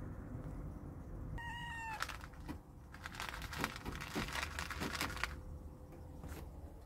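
A tabby kitten gives one short meow about a second and a half in, begging for food, followed by a few seconds of light clicking and scratching.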